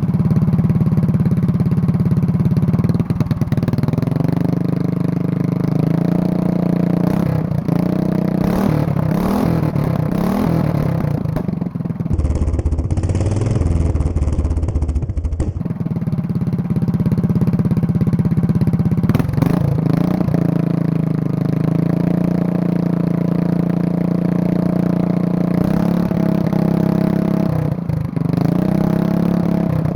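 Small 136cc go-kart engine with its governor removed and a header pipe, idling steadily and being blipped up and back down several times.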